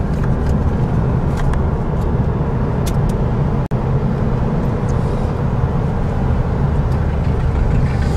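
Steady engine and road noise of a moving car, heard from inside the cabin, mostly low-pitched, briefly cutting out once a little past the middle.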